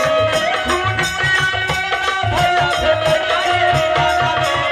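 Live nirgun folk music: a harmonium holds a melody over a steady hand-drum beat.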